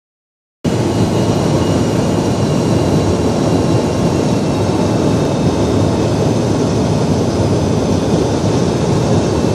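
Cabin noise inside a McDonnell Douglas MD-87 descending on approach: its rear-mounted Pratt & Whitney JT8D turbofans and the airflow over the fuselage make an even, steady noise with a faint high whine of steady tones over it. It starts abruptly about half a second in.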